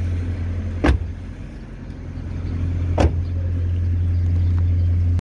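Car doors of a Mitsubishi Galant sedan being shut: two sharp slams, one about a second in and another about two seconds later, over a steady low hum.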